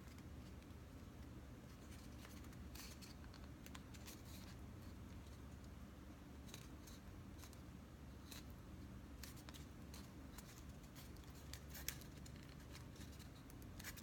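Near silence over a low steady hum, with faint, irregular small clicks and rustles of paper pieces being handled and pressed into place during hot-gluing, and one sharper click about twelve seconds in.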